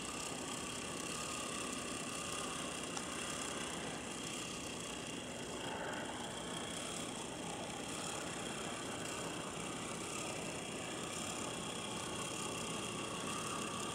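HO-scale brass PFM United 2-6-6-2 articulated steam locomotive model running along the track: the steady mechanical sound of its electric motor, gearing and wheels on the rails.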